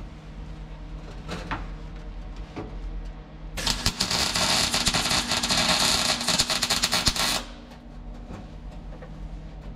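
MIG welder laying one bead of about three and a half seconds, a steady crackling sizzle that starts and stops abruptly about halfway through. It is welding the double-layer steel where the Beetle's heater channel meets the rear crossmember. A few faint knocks of handling come before it.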